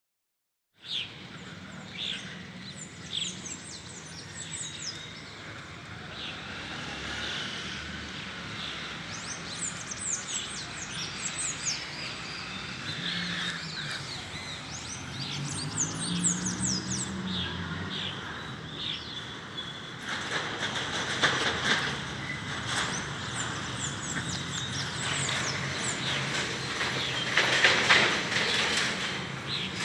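Dusk chorus of many birds chirping and calling at once, short overlapping chirps with no single song standing out. A steady low hum runs underneath, and from about two-thirds of the way in a rougher noise thickens the sound.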